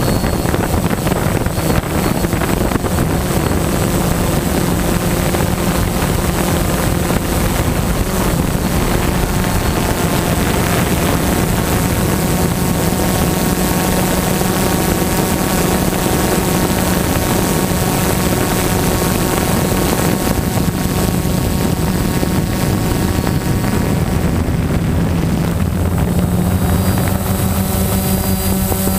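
DJI Phantom quadcopter's propellers and motors buzzing steadily in flight, picked up by the camera slung beneath it; the hum's pitch shifts a little in the last few seconds as the motors adjust.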